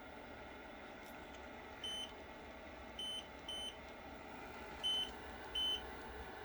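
Six short single-pitch electronic beeps from a portable heater/air-conditioner unit's control panel as its buttons are pressed to switch it to cold, spaced irregularly over a faint steady hum of the running unit.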